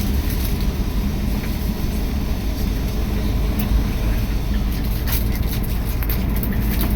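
Tour bus cabin noise: a steady low engine and road rumble, with a few light clicks or rattles near the end.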